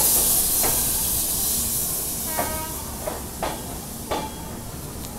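Passenger train moving slowly out of a station: a loud, steady hiss that slowly dies away, over a low rumble, with a few faint short sounds in the middle.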